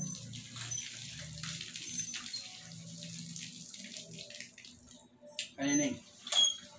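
Wet chewing and lip-smacking of people eating with their hands, with small clicks of food and fingers against the plates. Near the end there is a brief louder sound, then a sharp click.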